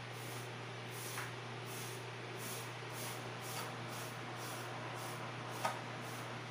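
Room tone: a steady low hum under an even hiss, with a few faint clicks, the sharpest near the end.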